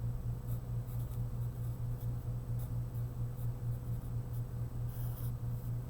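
Faint, intermittent scratches of writing as the multiplication is set out, over a steady low hum that is the loudest sound throughout.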